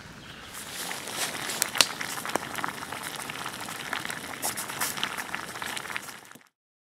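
Split cedar wood fire crackling, with a steady hiss and many sharp pops; it cuts off abruptly near the end.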